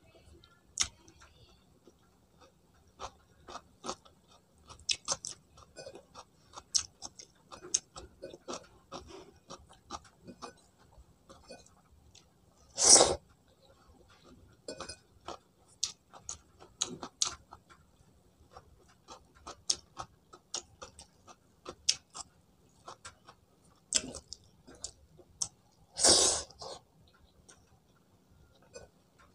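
Close-up mouth sounds of a person eating rice and food by hand: irregular wet chewing clicks and lip smacks, with two louder, longer sounds, one about halfway and one near the end.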